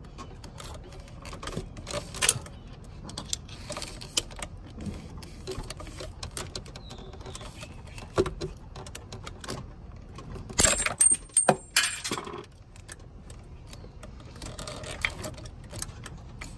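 Small metal parts clicking, clinking and scraping as the shifter cable ends and their metal collar clips are worked loose by hand, with a louder cluster of sharp clicks about eleven seconds in.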